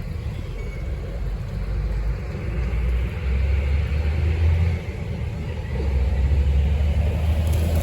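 A steady low rumble that swells twice, with a faint hiss above it.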